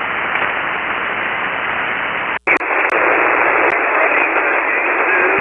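Steady hiss of HF band noise from a ham transceiver's receiver on 40-metre SSB, with the distant station barely above the noise. The noise cuts out briefly with a few clicks about two and a half seconds in.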